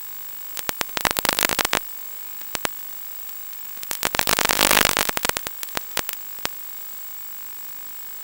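Radio static from a 1.2 GHz analog FPV video link's audio channel: a steady hiss with a thin high whine, broken by two bursts of loud crackling, about a second in and again around four to five seconds. The crackle is the sign of the video signal weakening and breaking up.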